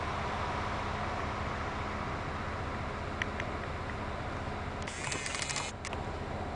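Steady wind rumble on the microphone, with a short whirring rattle from the camera's zoom motor about five seconds in, as the lens zooms in, and a faint tick a little earlier.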